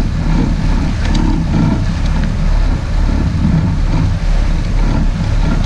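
Sport-fishing boat's engine running steadily as the boat moves slowly ahead to swim a hooked marlin alongside, a low rumble under the noise of water washing along the hull.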